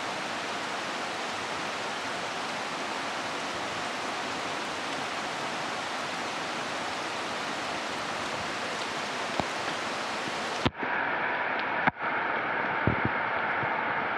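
Heavy rain falling steadily, an even hiss with no pattern. About ten and a half seconds in the sound changes abruptly to a duller, narrower rain hiss, broken by a few sharp clicks.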